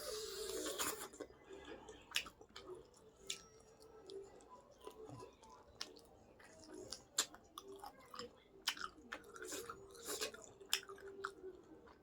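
Close-miked chewing and biting of food, with many sharp wet mouth clicks and crunches and a louder crackling bite in the first second.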